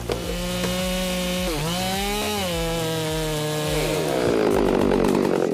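Chainsaw engine running at high revs. About a second and a half in, its pitch drops briefly and climbs back, as when the chain bites into the wood. Near the end the pitch sags again.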